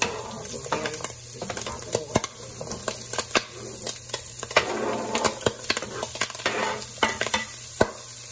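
Diced onion, carrot and bell pepper tipped and scraped off a glass cutting board with a wooden spoon into a pot of frying ham cubes: pieces dropping in, the spoon scraping and tapping the board, with many irregular sharp clicks and crackles.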